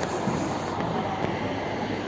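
Minibus driving slowly past close by: steady engine and tyre noise.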